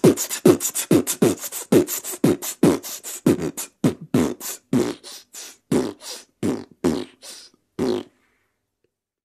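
A run of single percussive 'pum' beats in a hip-hop track, about four a second at first. After about four seconds they thin out and slow, and they stop about eight seconds in.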